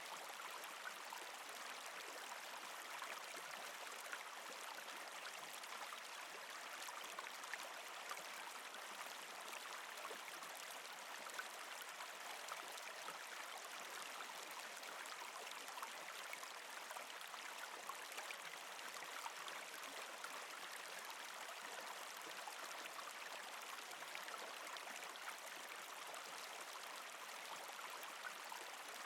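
Mountain stream babbling steadily over rocks, a continuous rush of flowing water with small splashes throughout.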